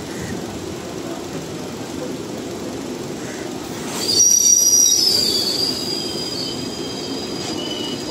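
Steady rumble of passenger train coaches running past on the adjacent track. About four seconds in, high-pitched wheel squeal sets in, loudest for about a second and then going on more faintly.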